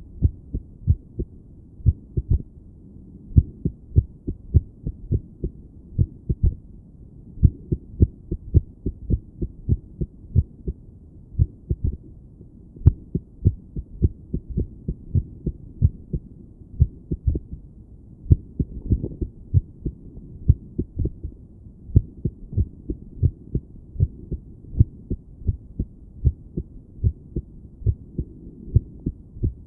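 A human heartbeat heard through a stethoscope on the chest: low, muffled thuds beating at uneven intervals, an irregular rhythm.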